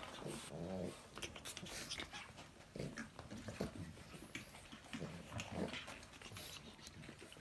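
Pug puppy and adult pug at play: short dog vocal sounds a few times, with scuffling and light clicks of paws and claws.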